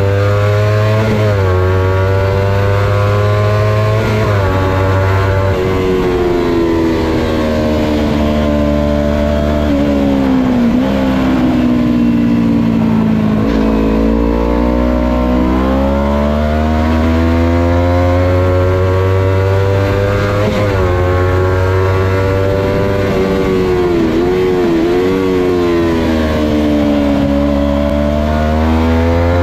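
Kawasaki Ninja 250's parallel-twin engine revving hard through the gears, its pitch climbing under acceleration and dropping back on each shift or roll-off. The pitch falls furthest about halfway through and again near the end, the way it does when braking for a corner.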